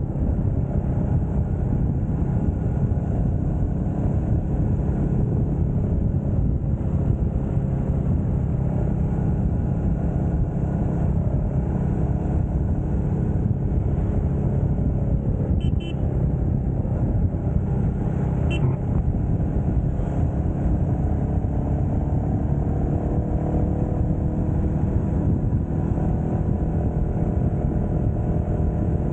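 Royal Enfield Meteor motorcycle running steadily at cruising speed on the road, engine and road noise heavy in the low end. A couple of brief horn toots sound about halfway through.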